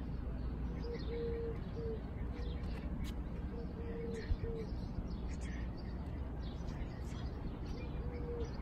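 Doves cooing, a string of short, low, steady coo notes repeated every second or so, with small birds chirping over a steady low rumble.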